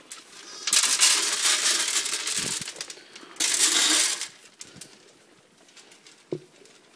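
Dry feed pellets poured out in two rushes, the first about two seconds long and the second under a second, followed near the end by a single short knock.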